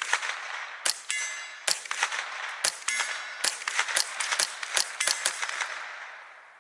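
Remington 597 semi-auto .22 LR rifle fired shot after shot, about ten sharp cracks in five seconds, with a metallic ring after some of them. The rifle is cycling Remington Thunderbolt high-velocity rounds without a jam.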